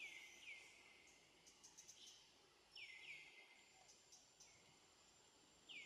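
Faint forest bird calls: short whistled notes that sweep downward, some in quick pairs, repeating every second or few. A thin, steady high tone joins partway through.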